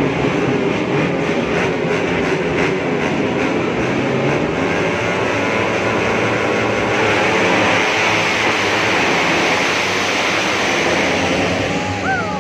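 Several racing motorcycle engines running hard at high revs, a dense steady mechanical noise with sharp cracks in the first few seconds. Near the end a separate tone slides down and then holds steady.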